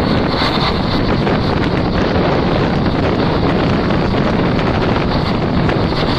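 Steady rush of wind buffeting the microphone over the running rumble of a moving train, recorded from the carriage door or window.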